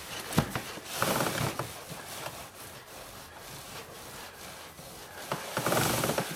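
A rag rubbing along a motorcycle's drive chain, wiping off the kerosene. The wiping is louder about a second in and again near the end, with a few light clicks from the chain.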